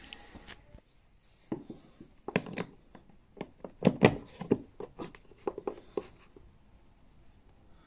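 UK mains plugs being pulled from and pushed into a wall socket, with their cables handled: a run of irregular sharp clicks and knocks, the loudest about four seconds in.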